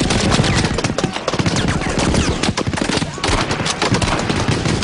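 War-film battle sound of dense gunfire: rapid machine-gun bursts and single shots overlapping one another, with a brief dip a little past three seconds in.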